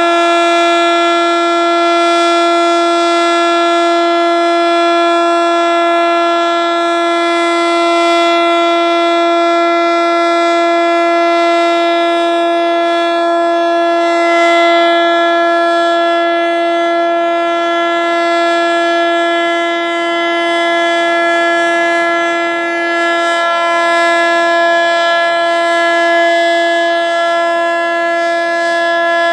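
ASC T-121 AC/DC outdoor warning siren sounding a steady single-tone alert at about 342 Hz, rich in overtones, swelling slightly in loudness. The uploader takes this siren to be underpowered, not getting enough voltage.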